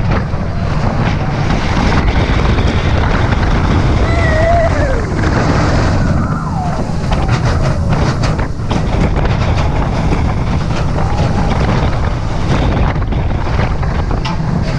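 Heavy wind buffeting the microphone as a SheiKra dive coaster train runs its course at speed, with a steady low rumble. A few faint rider shouts show up about four and six seconds in.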